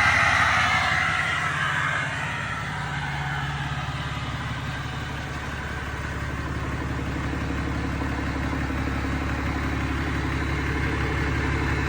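Cummins diesel engine running. A loud high rushing noise fades away over the first two seconds, then the engine idles steadily.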